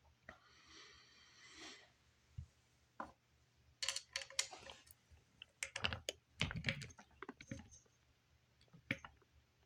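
Irregular clicks, taps and light knocks of plastic fan parts being handled during disassembly of the fan's motor housing, with a soft scraping in the first couple of seconds.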